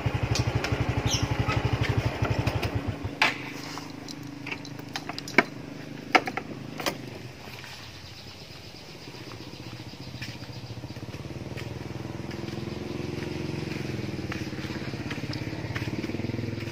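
Motorcycle engine idling with a fast, even low putter, then cut off about three seconds in. A few sharp clacks follow, and later another engine hum rises and holds steady.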